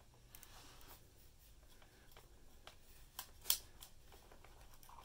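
Faint small clicks and rustles of a 35mm film cassette and its leader being handled and fitted into the open back of a film camera, with a sharper click about three and a half seconds in.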